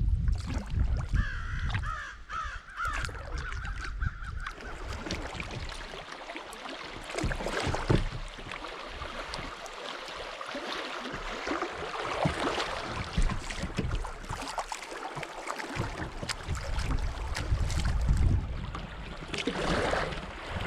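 Kayak on a river: water splashing and rushing around the paddle and hull, with wind rumbling on the microphone. A bird calls several times in the first few seconds.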